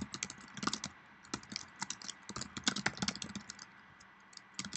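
Typing on a computer keyboard: a quick run of key clicks, pausing for about a second near the end before resuming.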